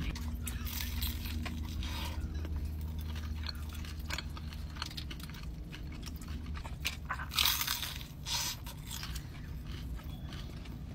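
Close-up biting, crunching and chewing of crispy Bonchon soy garlic Korean fried chicken, many small crackly crunches with the loudest bites about seven and a half and eight seconds in. A low steady hum runs underneath.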